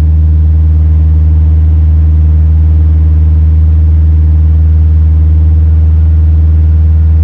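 Ford Ranger pickup's engine running at a steady idle, a loud steady low hum, with its A/C compressor engaged to drive the refrigerant system that cools the amplifiers.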